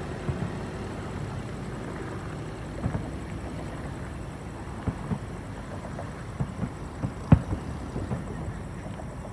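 Distant fireworks going off: irregular dull booms over a steady background rumble, the sharpest bang about seven seconds in.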